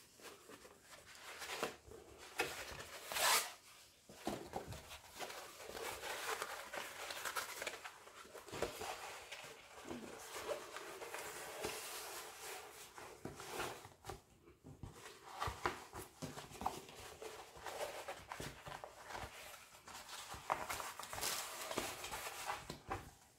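Rustling and crackling of a rolled diamond-painting canvas and its plastic protective film as it is unrolled and smoothed flat by hand, with a sharper crackle about three seconds in.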